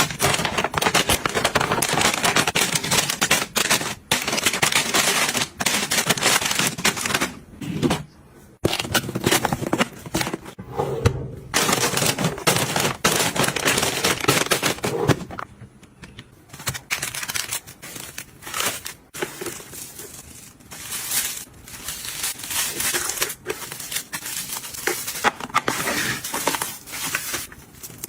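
Close handling sounds: crinkling and rustling of packaging with many light clicks and taps, busier in the first half and lighter after about the middle.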